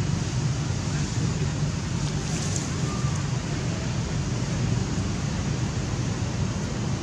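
Steady outdoor background noise: a low rumble with an even hiss over it, with no monkey calls heard.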